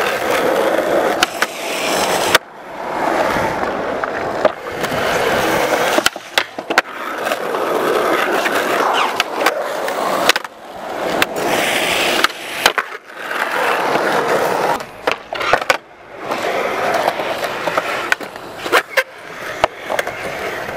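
Skateboard wheels rolling on smooth concrete, broken by sharp tail pops and landing clacks, with the board scraping along a metal rail. Several short runs cut one after another, each starting and stopping abruptly.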